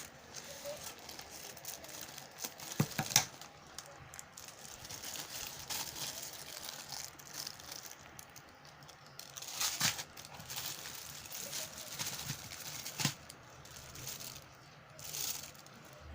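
Plastic packaging crinkling and rustling as it is handled and opened, with a few sharp clicks and knocks.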